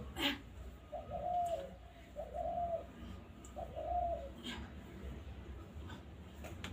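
Dove cooing: three short coos in a row in the first half. A few thumps of feet landing on the floor, the loudest just at the start and two more in the second half.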